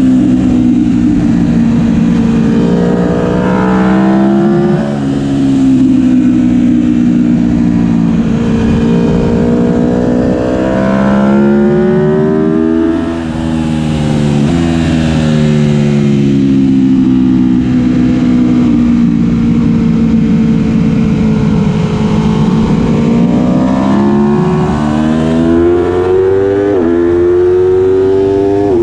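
Aprilia Tuono V4 1100 RR's 65° V4 engine through a Graves exhaust, revving hard on track. Its pitch climbs under acceleration, drops in quick steps at upshifts made with the quickshifter, and falls away when slowing for corners.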